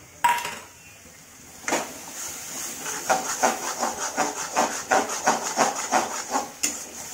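Metal spatula scraping and stirring a crumbly lentil mixture frying in an aluminium kadai: quick repeated scrapes, about three a second, over a steady sizzle. There is a sharp knock just after the start and another near the end.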